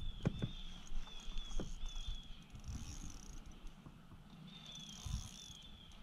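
Wild animal calls: a high chirping note repeated several times in two runs, and a higher buzz that swells and fades twice, with a few light clicks.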